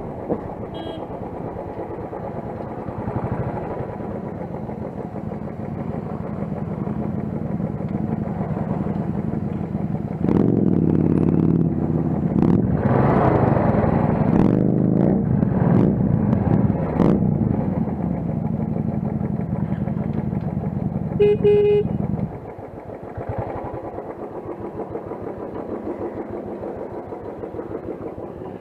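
Motorcycle engine running on the move. It gets louder about ten seconds in, its pitch rising and falling with the throttle, and drops back about twenty-two seconds in. A short horn toot sounds just before the drop.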